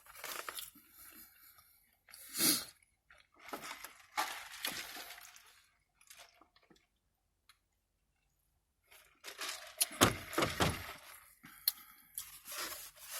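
Close-up eating sounds from a takeout fish plate: chewing with crunches and squishes, and thunks from handling the food and container. There is a near-quiet gap midway, then a denser run of louder knocks and chewing near the end.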